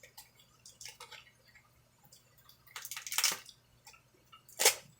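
Light handling noises from small plastic bags holding tassel earrings: a few faint crinkles about a second in, a louder crinkle around three seconds in and one sharp crackle near the end.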